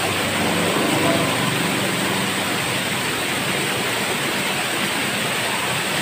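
Steady rush of a waterfall, water falling onto rock and into a shallow plunge pool.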